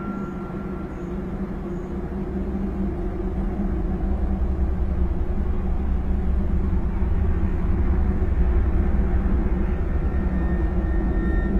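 A low, steady droning rumble with a few held deep tones, growing louder over the first several seconds: the kind of unexplained 'trumpet in the sky' sound heard in viral recordings.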